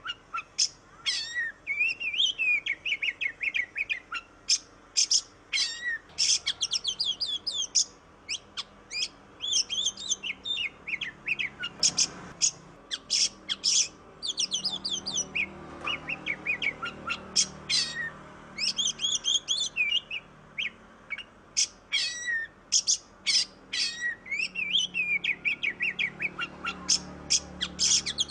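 Oriental magpie-robin (kacer) singing a long, varied song of quick whistles, trills and chattering notes, phrase after phrase with brief pauses.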